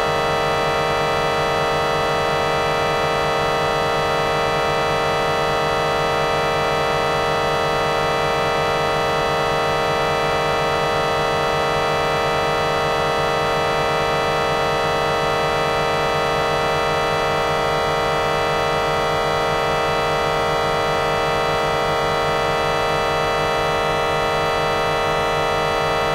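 Electronic vocoder sound effect: a harsh, buzzing drone of many stacked steady tones, holding at an even loudness with a slight regular wobble.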